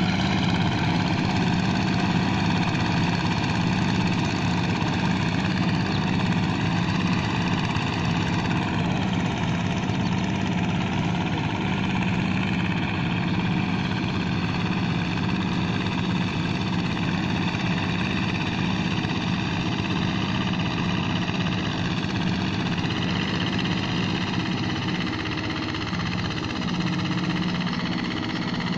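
Two-wheel hand tractor engine running steadily while working a flooded rice paddy. Its pitch sags slightly about ten seconds in, then recovers.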